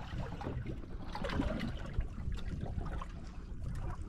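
Water splashing and lapping around a small fishing boat, in small irregular splashes.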